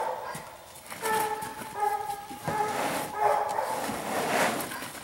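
Coon hound whining from its dog crate: two drawn-out, steady-pitched whines of about a second each.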